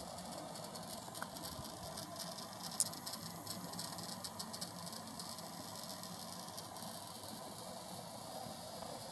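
Small Yokogawa geared electric motor turning a rotisserie basket, running steadily with a faint hum and light rattling ticks, and one sharper click about three seconds in.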